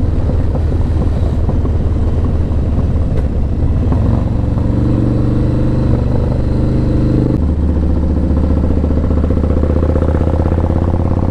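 Motorcycle engine running while riding. The engine note climbs slightly about four seconds in, then drops abruptly a few seconds later.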